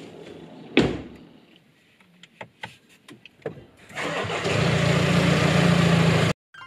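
A car door shuts with a thud about a second in, followed by a few light clicks. Then the car's engine starts and runs at a steady idle, cut off abruptly near the end.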